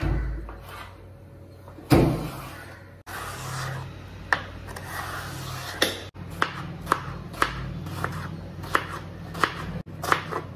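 Kitchen knife cutting snake gourd on a wooden chopping board. There is a loud knock about two seconds in, then the blade taps the board roughly twice a second as the gourd is sliced into strips and diced.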